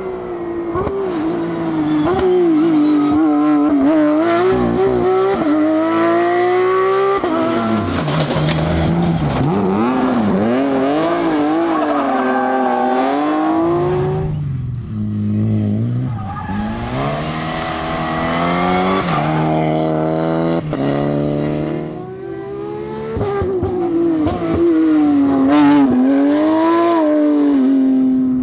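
Rally cars at full effort on a stage, one after another: engines revving high, pitch climbing and dropping through gear changes and lifts, with some tyre noise.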